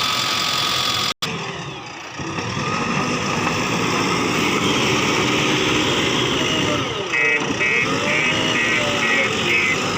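Heavy diesel engine of a JCB 3DX backhoe loader running under load, with a brief dropout about a second in and engine speed rising and falling later on. A high pulsing tone repeats from about seven seconds in.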